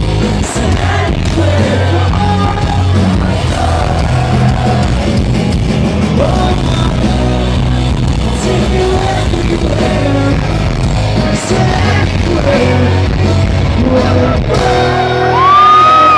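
Live pop-punk band playing loud in a large hall: electric guitars, bass and drums with a singer's voice. Near the end a high held note slides up and the music gets a little louder.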